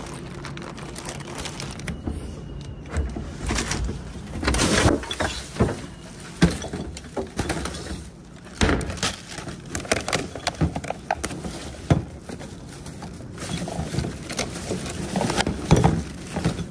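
Rummaging in wheeled plastic recycling bins: irregular knocks and clatters of the bins and their lids, and plastic bags being crinkled and pulled about.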